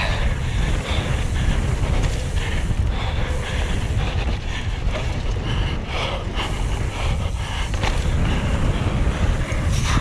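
Wind buffeting an action camera's microphone during a fast mountain-bike descent: a steady low rumble, with scattered short bursts of bike and trail noise over it.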